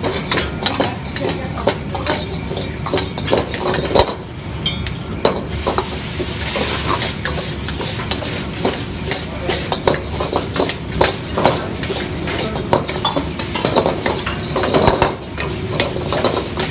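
Metal ladle scraping and clanking rapidly against a steel wok as vegetable noodles are stir-fried and tossed, with the food sizzling. A burst of louder sizzling hiss comes about six seconds in as the noodles are flipped over the flame, and the gas wok burner gives a steady rush underneath.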